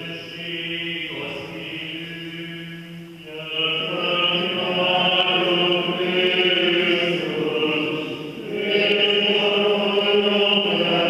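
Byzantine-rite liturgical chant sung in a church, slow and on long held notes. About three and a half seconds in, the singing grows louder and fuller.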